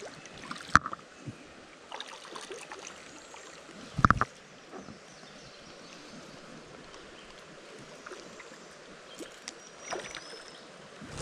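Shallow creek water trickling and splashing while a hooked fish is played on a spinning rod, with scattered small clicks and one sharp knock about four seconds in.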